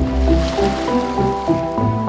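Calm ambient instrumental music of held notes over a low bass, with a soft wash of ocean waves beneath it.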